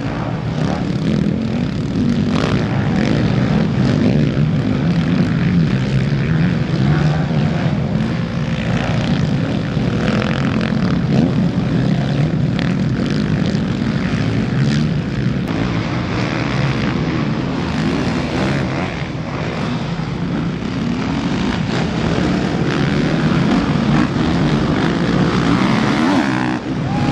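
Several motocross dirt bikes racing together through a corner, their engines running loudly and overlapping, rising and falling as riders throttle through the turn and pass.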